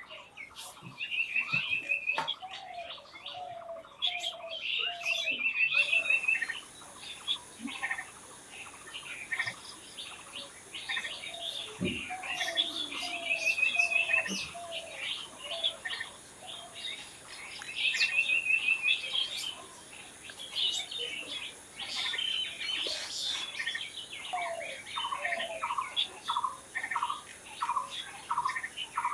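Several wild birds calling and singing at once: short chirps, repeated brief trills, and runs of lower down-slurred notes, with a quick series of notes near the end. A steady high hiss runs underneath from about six seconds in.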